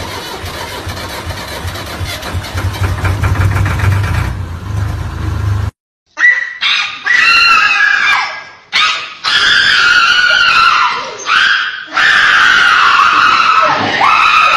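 A loud rumbling, rattling noise that builds for several seconds and cuts off abruptly. Then a group of people scream and shriek in loud, high-pitched bursts.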